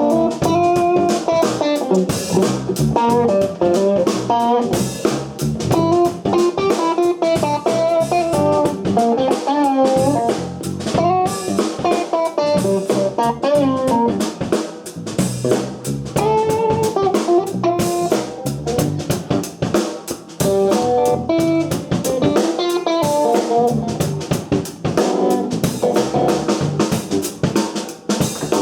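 Band playing: an electric guitar's melodic lead line over a drum kit, with no singing.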